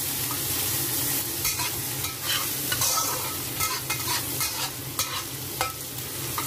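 Sliced smoked duck with garlic and ginger sizzling in hot oil in a wok, with a metal spatula scraping and clinking against the wok as it is stir-fried. The scrapes and clinks come often after about the first second.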